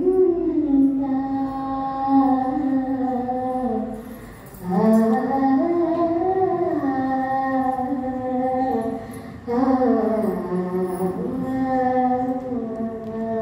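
Slow devotional chanting: voices sing long, held notes that glide gently in pitch, in three drawn-out phrases of about four to five seconds each.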